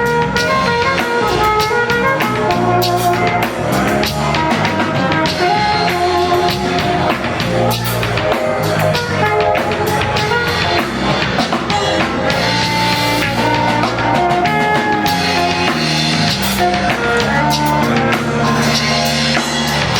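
A live band playing: drum kit keeping a steady beat under electric guitar and bass, with held melodic notes over the top.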